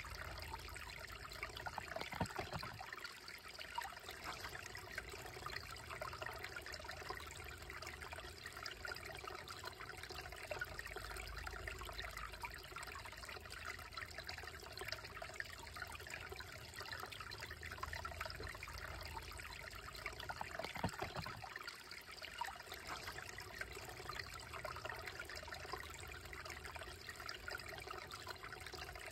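Small, shallow woodland creek trickling and babbling over stones, a steady, even flow of water.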